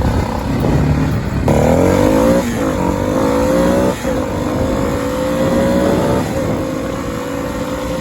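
Four-wheeler (ATV) engine run hard, its pitch climbing and dropping back about three times, as it is pushed to see whether it will blow up.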